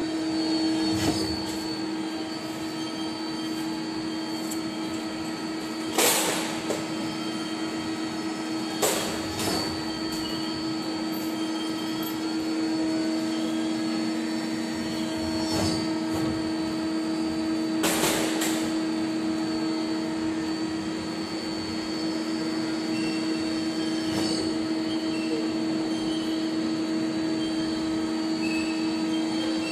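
Mazak Quick Turn 20 CNC lathe powered up and running: a steady machine hum with a faint high whine, broken by a few sharp clacks, the loudest about 6, 9 and 18 seconds in.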